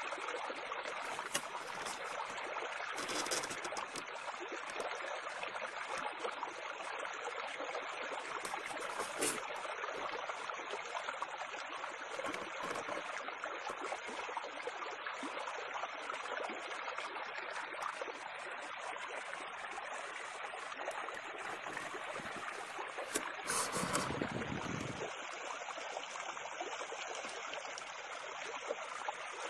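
Steady trickling, bubbling water in an aquarium, with a brief louder, deeper rumble about three-quarters of the way through.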